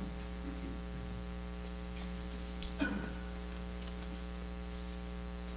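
Steady electrical mains hum picked up by the microphone and sound system, with one brief faint sound about three seconds in.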